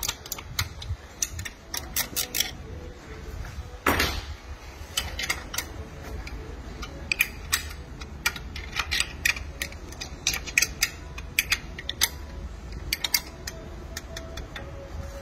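Hand ratchet clicking in short runs, with metal tools clinking against the aluminum bracket, as bolts are snugged lightly into the aluminum cylinder head. A single louder clack about four seconds in.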